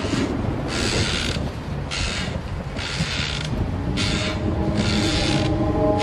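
Horror sound effect: rhythmic rasping strokes, alternating short and longer, about one a second, over a steady low eerie drone.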